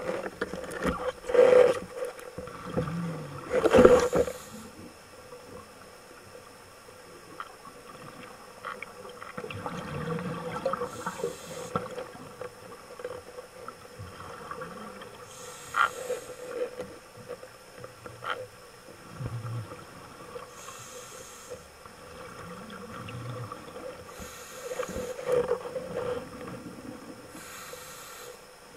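Underwater sound of a scuba diver breathing: a high hiss returns every four to five seconds, with low bubbling between, over a steady hum. Two loud knocks come in the first four seconds.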